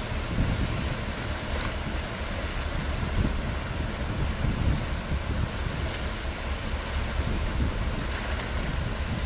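Wind buffeting the microphone over a steady rush of open harbour water, with no clear engine tone.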